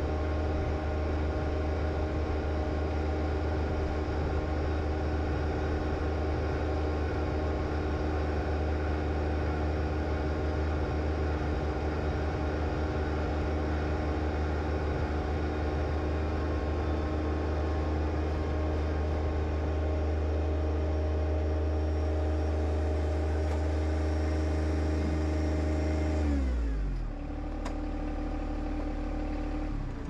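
John Deere 1025R compact tractor's three-cylinder diesel engine running steadily at high throttle, then throttled down near the end, its pitch falling to a lower steady idle.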